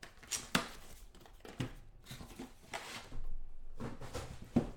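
Trading-card box and packaging being handled: a few sharp taps and clicks, with a short rustle of packaging about three seconds in.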